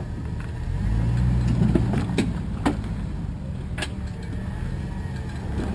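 Rock crawler's engine running at low revs, picking up about half a second in as it works over the rocks, with a few short sharp clicks or knocks in between.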